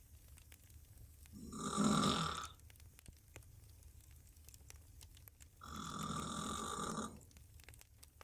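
A woman snoring on her back with her mouth open: two long, rough snores about four seconds apart, the first swelling louder, the second steadier and a little longer.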